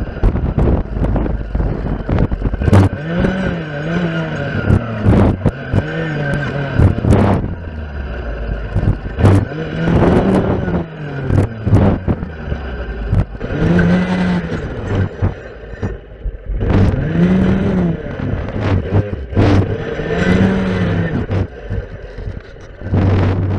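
Stihl FS 460 clearing saw's two-stroke engine revving up and dropping back again and again, every second or two, as its circular blade cuts through spruce saplings and brush, with many short sharp cracks as the blade strikes stems.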